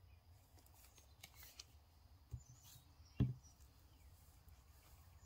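Quiet handling of cloth and lace on a work table, with faint soft ticks, a small knock a little over two seconds in and a sharper knock about three seconds in as the plastic glue bottle is set down.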